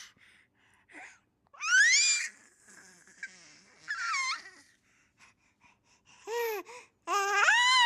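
A baby squealing and cooing: about five short high-pitched calls, some sliding up and others arching up and down, with pauses between them; the last is the longest.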